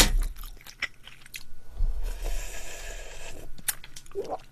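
Close-up eating sounds: chewing and a few small clicks, then, about two seconds in, a steady slurp lasting over a second as the last of the pork and rice soup broth is drunk from the bowl.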